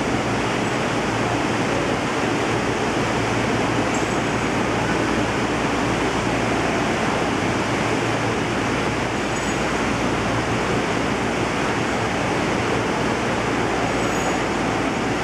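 Steady rushing of water circulating through a large aquarium tank, with a low steady hum underneath.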